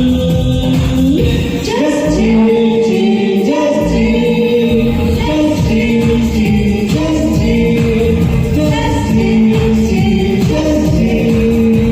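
Karaoke performance: voices singing a melody over a recorded pop backing track.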